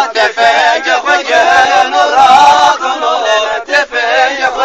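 Male voice singing a Zaza-language halay folk song, with long, wavering held notes and a brief break about three and a half seconds in.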